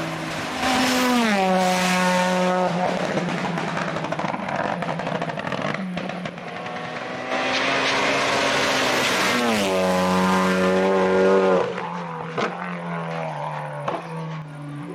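Hillclimb race car engine running at high revs, its pitch dropping sharply about a second in and again near ten seconds. It is loud in two stretches, then fades away near the end.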